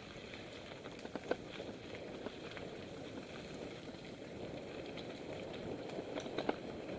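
Mountain bike riding along a dirt singletrack: steady rolling noise of the tyres on the trail, with scattered sharp clicks and rattles from the bike, the loudest about a second in and near the end.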